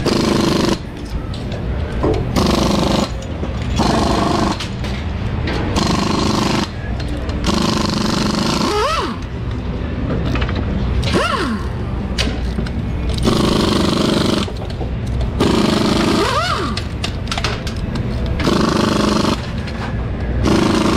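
Pneumatic impact wrenches run in repeated short bursts while a nitro Funny Car engine is torn down, with now and then a tool whirring up and back down in pitch.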